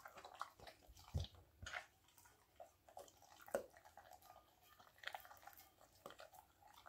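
German Shepherd eating raw game meat from a stainless-steel bowl: faint, irregular wet smacks, licks and chewing clicks.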